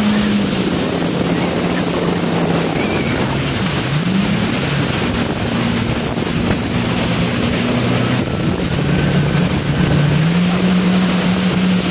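Watercraft engine running at speed, its pitch dipping and rising several times with the throttle, over water splashing against the hull and wind on the microphone.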